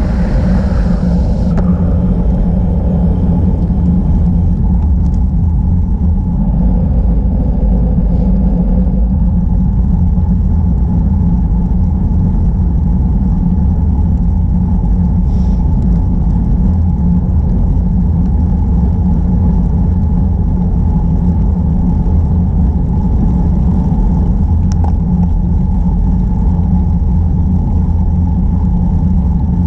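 Steady, loud rumble of wind buffeting and tyre-on-asphalt noise picked up by a camera on a moving bicycle. A brighter hiss on top fades out about two seconds in.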